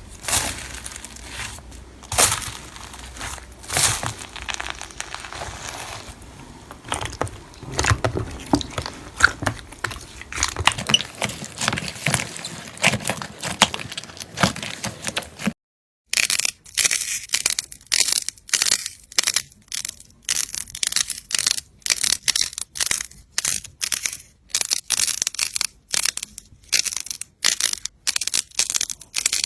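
Slime being squeezed and pressed, crackling and popping irregularly. After a short break, crisp crunches follow at about two a second.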